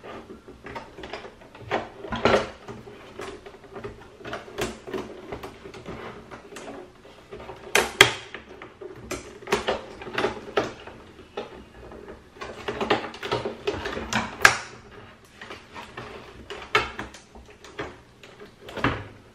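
Plastic front bezel of a Philips 243V5LHAB LCD monitor being forced apart by hand: irregular creaks and clicks as its snap-in clips strain and give, with sharp cracks about 8 and 14 seconds in.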